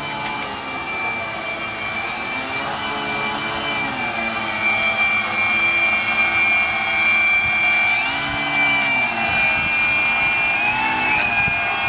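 Twin small electric DC motors driving a homemade foam boat, running with a steady high whine. Their pitch swells up and falls back several times.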